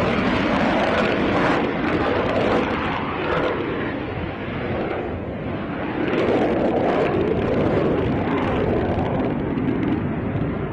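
Jet noise from a Dassault Rafale's twin turbofan engines as the fighter takes off and climbs away. The steady rushing sound eases about four seconds in and swells again around six seconds.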